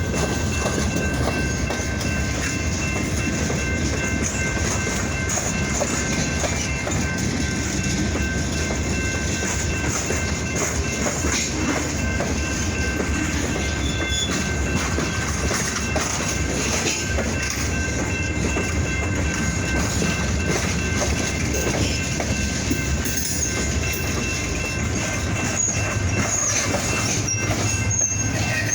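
Freight train rolling by: a steady rumble of rail cars with wheels clicking over rail joints, and a few brief high-pitched wheel squeals near the end.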